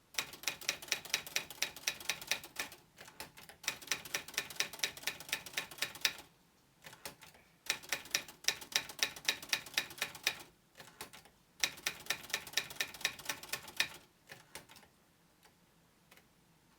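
Olivetti Lettera Studio 44 portable typewriter being typed on in a type test: quick, sharp key strikes, about five or six a second, in runs of a few seconds with short pauses between them, thinning to a few scattered strikes near the end.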